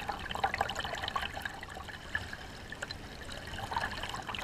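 Water lapping and trickling close against the hull of a kayak being paddled, in many small irregular splashes.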